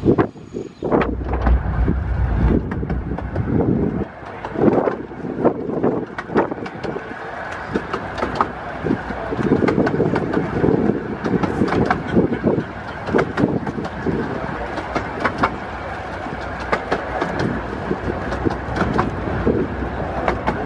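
Riding in a carriage of a 15-inch-gauge miniature train: steady running noise with frequent, irregular sharp clicks and rattles from the wheels on the rails and from the coach.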